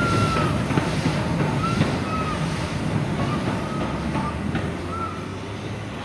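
BR Standard Class 4MT tank engine 80097 pulling away under steam, a loud rushing hiss of steam that slowly fades as it leaves. Several short, high squeals come and go through it.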